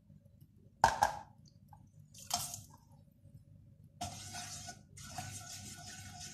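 Whole spices (cumin seeds, a bay leaf) sizzling in hot oil in a nonstick wok, starting about four seconds in while a spatula stirs them: the oil is hot enough for the spices to crackle. Before that, a sharp knock about a second in and a shorter clatter.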